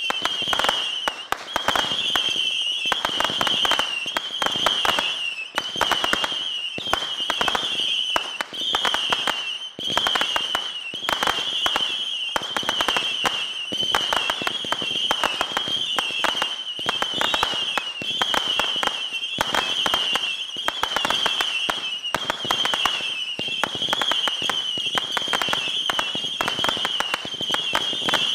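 A 750-shot Saturn missile battery firing in rapid succession: a near-continuous run of overlapping whistles that waver around one high pitch, over dense crackling and popping from the small rockets.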